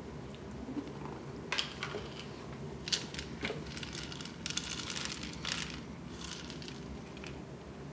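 Puffs snacks rattling inside a plastic canister as it is shaken out onto a plastic high-chair tray, in several short rattling bursts over about five seconds.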